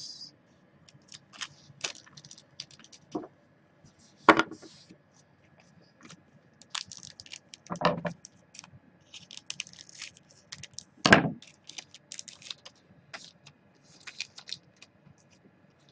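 Trading cards being handled over a table: a run of light clicks and rustles as cards are flipped through and slid past one another, with about three louder knocks.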